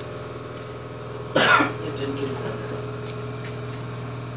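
A single short cough, about a second and a half in, over a steady low hum.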